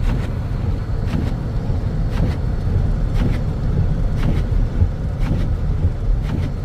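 Road noise inside a moving car's cabin: a steady low rumble from the engine and tyres, with a faint regular tick about once a second.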